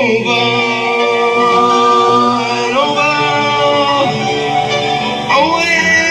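A song playing: a band with a melody of long held notes that slide into a new pitch every second or so.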